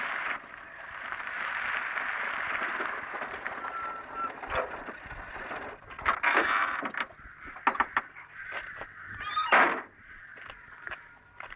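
Series Land Rover running as it pulls up and stops, followed by a run of sharp clicks and knocks as the driver climbs out, the loudest knock near the end.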